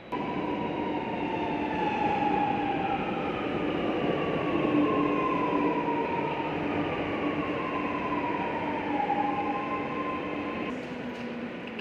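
Lucknow Metro train running, a steady rumble under the whine of its electric drive, which slides down in pitch several times over a steady lower hum.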